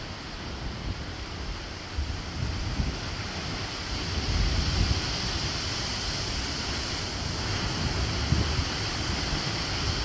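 Ocean surf surging and churning in a punch bowl, a collapsed sea cave below a bluff, with a steady rushing sound and a deep rumble. It swells about four seconds in as a wave spills in through the cave mouth and then pours back out over the rock ledge.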